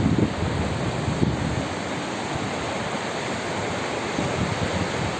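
A swollen river in flood after rain, its fast water rushing steadily. Gusts of wind buffet the microphone in the first couple of seconds.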